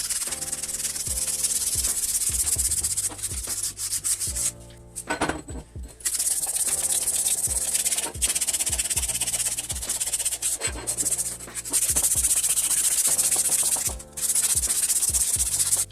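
Hand sanding: scratchy rubbing strokes in runs of a couple of seconds, broken by short pauses, with background music underneath.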